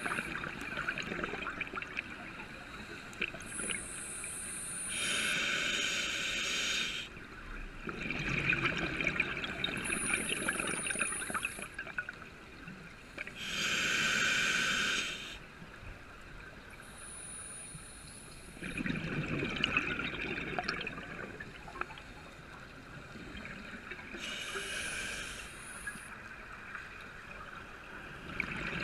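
Scuba diver breathing underwater through a regulator, in about three slow breath cycles: each inhalation a steady hiss of about two seconds, each exhalation a longer rush of bubbling as the air leaves the regulator.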